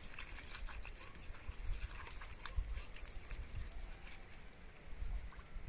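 Hands washing soil-covered chayote roots in water: irregular rubbing, small knocks and light splashing.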